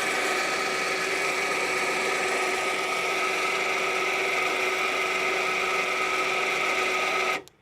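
Newly installed electric winch on a garden tractor running on its first test: the motor and gearing give a steady whine at even pitch. It cuts off suddenly just before the end.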